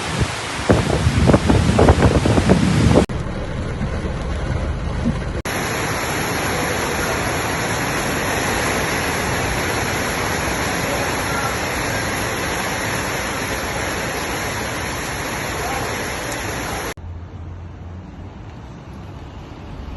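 Thunderstorm rain and wind recorded on phone microphones in several short clips: gusts buffeting the microphone for the first few seconds, then a long, steady hiss of heavy rain, and a quieter hiss with a low hum over the last few seconds.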